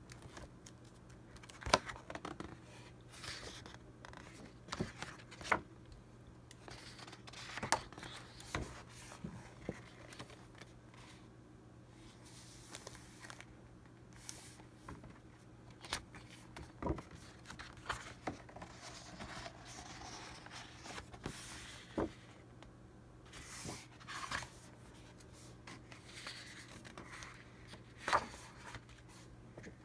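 Sheets of printed scrapbook paper from a Prima Marketing A4 paper pad being handled and leafed through: soft rustling and sliding with scattered crisp snaps of stiff paper, the sharpest about two seconds in and again near the end.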